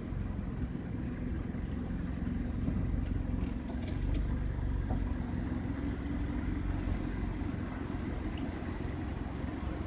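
Car driving slowly on a gravel drive: a steady low engine and tyre rumble.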